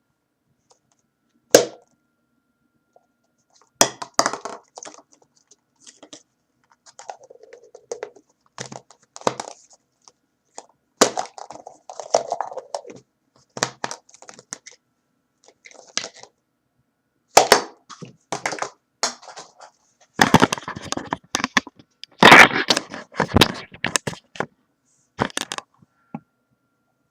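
Irregular series of sharp pops and cracks, some single, some in quick rattling clusters, the loudest cluster about twenty seconds in.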